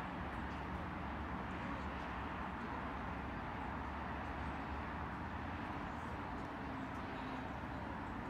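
Steady outdoor traffic rumble with a low, even hum, typical of a car engine idling at the closed crossing barrier.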